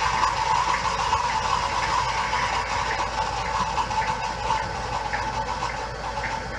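A gummy bear burning in molten potassium chlorate in a test tube: a steady, loud fizzing hiss from the violent reaction, slowly fading.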